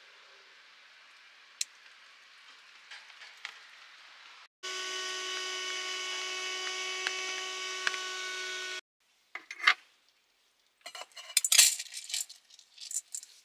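Faint hiss of rain, then a small ventilation fan in the camper shell's ceiling humming steadily for about four seconds, starting and stopping abruptly. Near the end, metal cookware clinks and scrapes sharply, the loudest sounds here.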